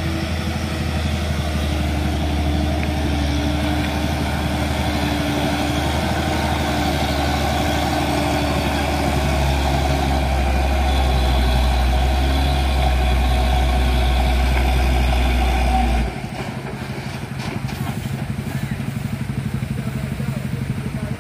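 Hino dump truck's diesel engine pulling hard under load on a steep uphill hairpin, a heavy steady drone. About three quarters of the way through the drone drops off suddenly to a quieter running as the load on the engine eases.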